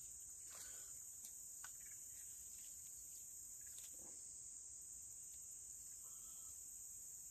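Faint, steady, high-pitched insect chorus from the woods, with a few faint clicks as a spinning rod and reel are handled.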